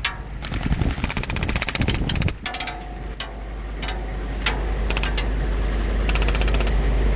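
Rapid bursts of airsoft gunfire, a fast string of sharp cracks for the first two seconds, then several shorter bursts, over the steady low running of a vehicle engine that grows louder from about halfway through.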